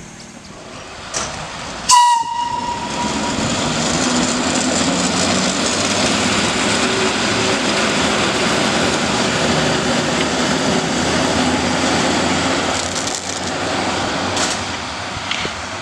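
A short horn blast from an FS E646 electric locomotive, then the locomotive running light past the platform at speed: a steady rumble and clatter of wheels on rails that eases off near the end as it moves away.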